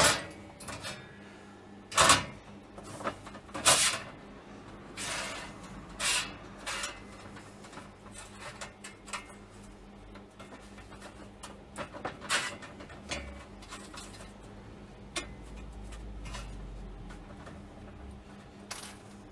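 Irregular sharp knocks and clunks of a steel rocket stove and TIG torch being handled and set down on a steel bench plate, a few short hissing bursts among them, over a steady low electrical hum.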